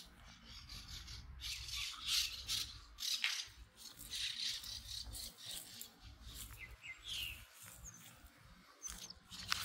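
Irregular crunching and rustling of footsteps through dry fallen leaves, over a low rumble. A few short bird chirps come in about seven seconds in and again near the end.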